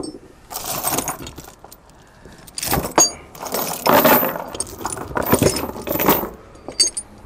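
Steel tie-down chains rattling and clanking against a wooden trailer deck in several bursts as they are pulled loose from a ratchet binder.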